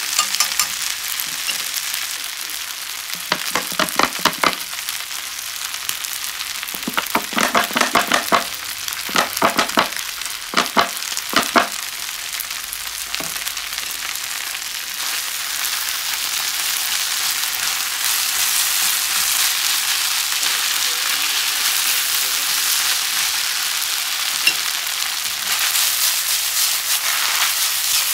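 Yakisoba noodles, cabbage and pork sizzling in a hot frying pan and stirred with chopsticks. There are short runs of rapid clicking in the first half, and the sizzle grows louder in the second half after the sauce goes on.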